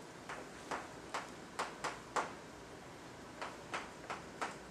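Chalk tapping and scratching on a blackboard as someone writes: a string of short, sharp clicks, with a pause of about a second midway.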